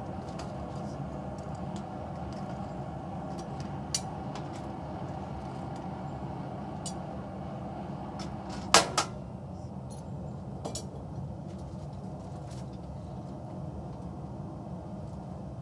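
A forge running steadily, with scattered knocks of objects being handled and a loud clatter with a brief ring about nine seconds in.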